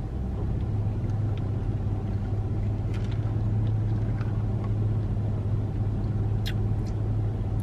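Steady low hum of a car heard from inside its cabin, with a couple of faint small clicks.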